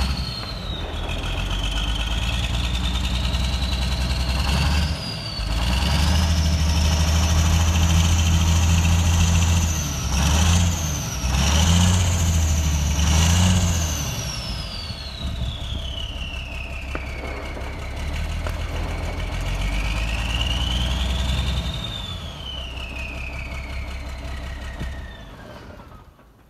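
Cummins 400 Big Cam turbocharged inline-six diesel in a 1986 Freightliner, running just after a cold start. It is revved up and held, blipped three times, then settled back, with a high whine rising and falling with the revs. The sound fades near the end.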